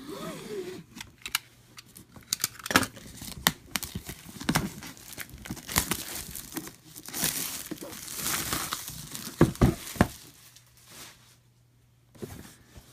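Plastic shrink-wrap being torn open and crinkled off a board-game box: an irregular run of crackling and tearing with sharp clicks, densest in the middle, dying away about a second before the end.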